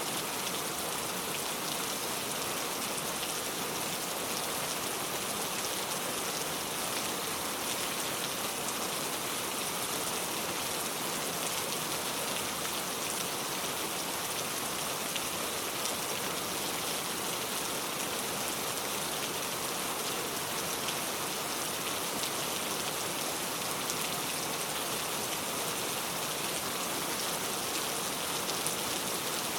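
Steady heavy rain falling on surfaces, a continuous even hiss speckled with individual drops, with no change in strength.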